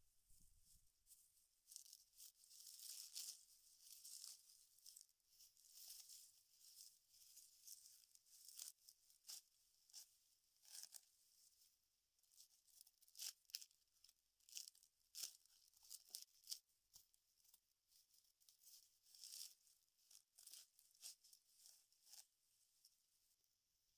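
Faint, irregular tearing and rustling of dry palm fibre being ripped by hand from the base of a palm trunk, in short pulls with brief pauses between them.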